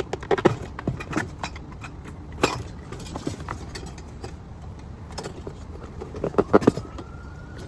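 Parts and packaging of a boxed Halloween animatronic being handled: irregular knocks, clicks and rustles, with a quick cluster of louder knocks near the end, over a low steady outdoor background hum.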